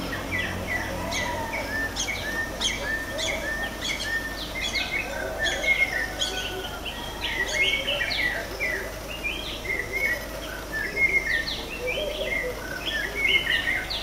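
Morning chorus of many birds singing at once: dense, overlapping chirps and quick whistled notes, with some lower calls underneath.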